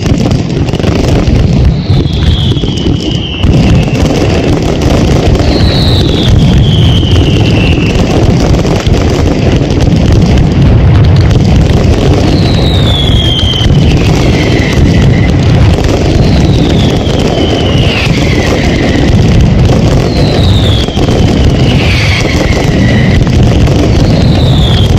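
Night mascletà by Pirotecnia Alpujarreña: a dense, continuous barrage of firecracker bangs, very loud through a phone's microphone. Whistling fireworks cut through it every few seconds, each whistle falling in pitch.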